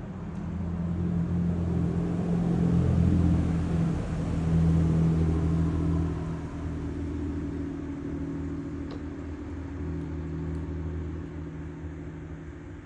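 A motor vehicle's engine going by, building up over the first few seconds, loudest in the middle, then fading away.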